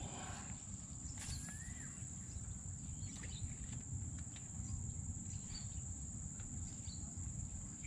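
Quiet outdoor ambience: a steady high-pitched insect drone over a low rumble, with a few faint clicks and one short chirp about a second and a half in.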